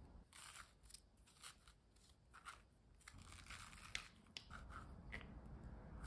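Faint close-up of a spoon scraping seeds and stringy pulp out of a raw kabocha pumpkin: a run of short, irregular scrapes and soft crunches that starts a moment in.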